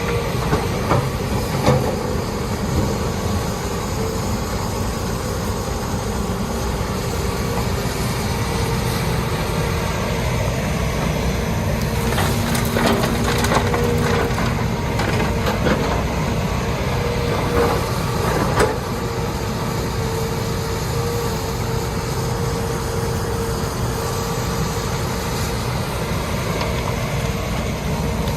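Hitachi Zaxis 210 hydraulic excavator running steadily under work, with a held mid-pitched tone over the engine and clusters of sharp knocks and clanks from the iron it is handling, about a second in, near the middle and around two-thirds through.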